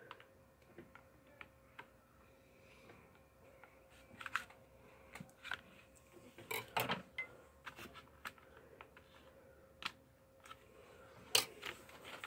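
Paring knife cutting and prying at a plastic blister pack on a cardboard backing: scattered clicks, scrapes and plastic crackles, with louder crackles about four, six and a half and eleven and a half seconds in.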